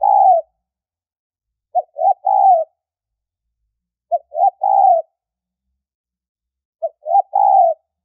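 Spotted dove cooing its high-pitched three-part call: two short notes, then a longer note that falls away at the end, repeated every two to three seconds. A tekukur lure call of the kind used to draw wild doves to a trap.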